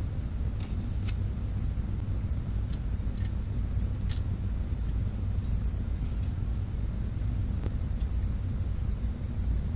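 Steady low background rumble with a few light clicks and taps of small chainsaw parts being handled and fitted.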